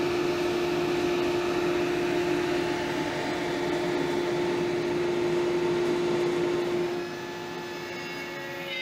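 A power tool's high-speed electric motor running with a steady whine over a rush of noise. The noise eases about seven seconds in while the motor keeps running.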